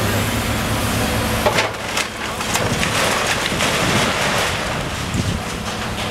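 Hydraulic demolition excavator's diesel engine running with a low steady drone, then from about a second and a half in, brick and timber debris crumbling and falling from the wall with a dense run of cracks and clatters.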